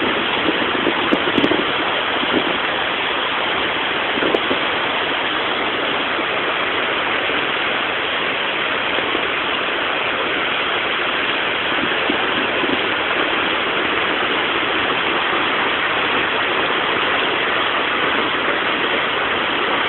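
Heavy monsoon downpour: rain pouring down in a steady, even hiss that does not let up.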